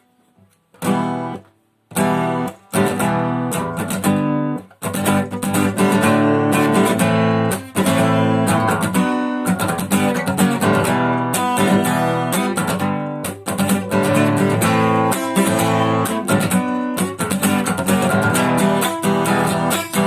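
Strummed acoustic guitar playing a song's instrumental introduction. It comes in about a second in with a few short chords broken by pauses, then plays on steadily from about five seconds in.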